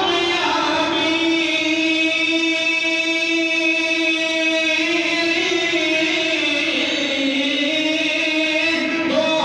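A man's voice singing a naat (Urdu devotional poem) unaccompanied, holding one long drawn-out note that shifts slightly in pitch about halfway through and again near the end.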